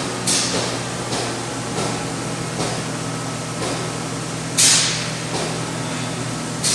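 Steady machine hum with a repeated hiss of air: sharp bursts that fade within about half a second, the strongest two about four seconds apart with fainter ones between.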